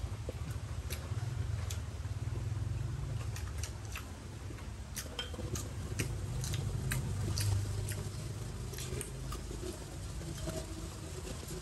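People eating a meal: scattered light clicks and taps of utensils against bowls, about one or two a second, over a low steady rumble.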